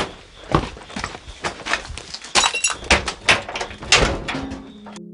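Footsteps and handling noises on debris: a run of irregular knocks, scrapes and crunches, busiest around three to four seconds in.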